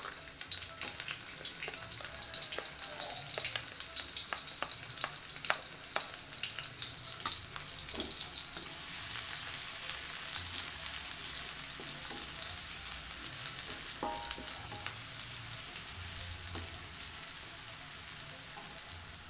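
Sliced shallots and garlic sautéing in hot oil in a wok, stirred with a wooden spatula: a steady frying sizzle with many sharp crackles in the first half, the hiss growing thicker about halfway through.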